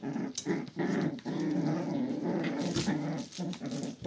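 32-day-old Shiba Inu puppies growling at each other as they play-fight, a near-continuous run of small rough growls broken by short pauses.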